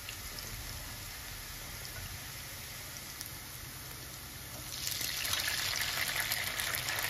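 Potatoes and peanuts frying gently in oil in a kadhai, a faint steady sizzle. About five seconds in, a louder hiss starts as soaked sabudana pearls are tipped from a bowl into the hot oil.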